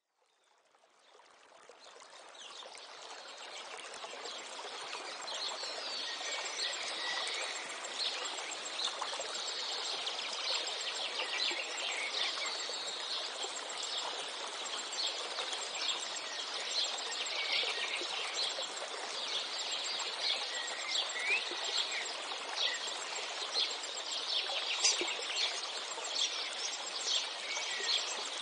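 Ambience of many small birds chirping and twittering over a steady rushing hiss, fading in from silence over the first few seconds.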